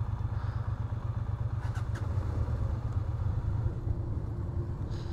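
Honda Transalp 650's V-twin engine running steadily at low revs, a low pulsing rumble. A couple of sharp clicks come about two seconds in.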